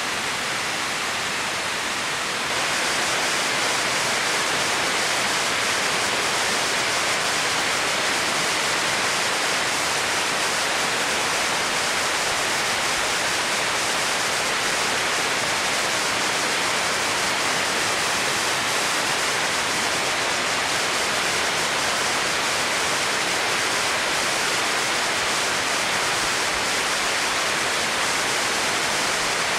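Waterfall: steady rushing of falling water, a little louder from about two and a half seconds in.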